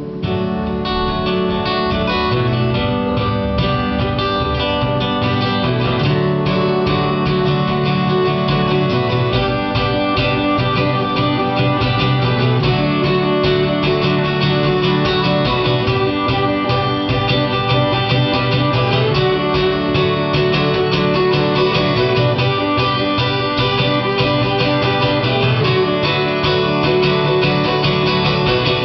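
Fiddle and strummed acoustic guitar playing an instrumental passage, with no singing.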